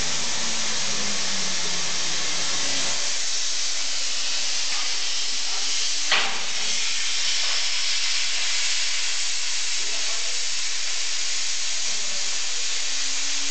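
Steady hiss of a CNC pantograph's cutting torch, with faint whines that glide in pitch near the start and near the end, and one sharp click about six seconds in.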